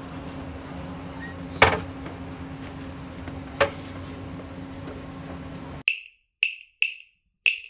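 Two sharp knocks about two seconds apart over a steady low hum. Near the end the hum cuts out and four short, bright clicks follow in quick succession, like a percussion cue starting.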